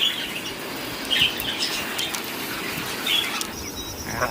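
Parrot calling in short, sharp chirps and squawks, several spread over a few seconds.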